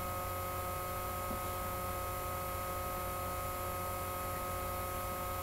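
Steady electrical hum with a few thin, constant whining tones above it, unchanging throughout.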